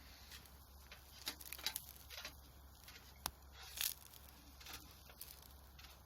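Wood campfire crackling under a steak grilling on a wire net, with scattered sharp pops and snaps; the sharpest comes a little after three seconds in.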